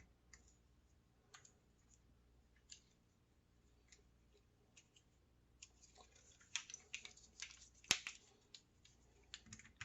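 Faint small metal clicks and scraping as a Torx wrench works a small screw into a router's housing: sparse at first, then busier over the last few seconds, with one sharper click.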